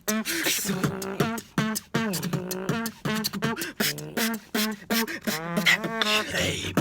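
Two beatboxers performing together: a fast run of sharp mouth-made drum hits and clicks, woven with sung, pitched vocal lines that slide up and down.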